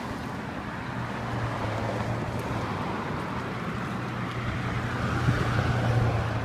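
Motor vehicle engine hum and tyre noise, building to its loudest near the end.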